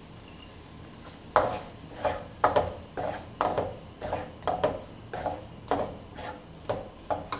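Spatula knocking and scraping against a metal kadai while stir-frying noodles: a quick series of sharp strikes with a short metallic ring, two or three a second, starting about a second and a half in.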